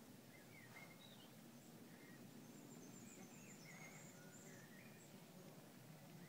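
Near silence: faint background hiss with a few faint, high, short chirps of distant birdsong.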